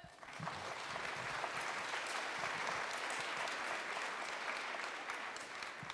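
Audience applauding: many hands clapping together. The clapping builds up within the first half second, holds steady, and tapers off near the end.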